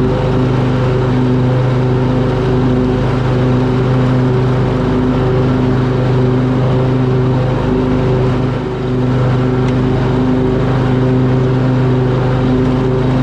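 Lawn mower engine running steadily at full throttle while mowing, with a brief dip in speed about two-thirds of the way in.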